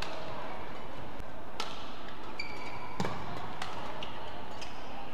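Badminton rackets striking a shuttlecock, four sharp hits over the last few seconds, with court shoes squeaking briefly on the court mat over steady hall noise.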